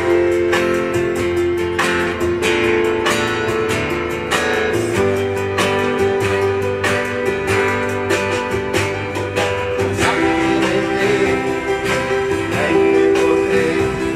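Acoustic guitars strumming and picking a tune in a steady rhythm, breaking in suddenly.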